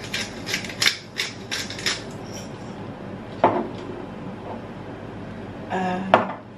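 Hand pepper mill grinding black pepper over a pan, in crisp grinding strokes about three a second that stop after about two seconds. A knock about three and a half seconds in, as something is set down, and a short ringing clink near the end.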